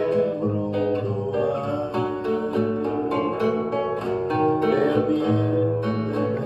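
Guitar playing a chord arrangement with plucked notes over a strong, steady bass line.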